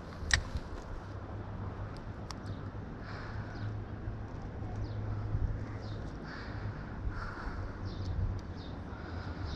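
Faint bird calls over a low steady rumble, with a sharp click about a third of a second in.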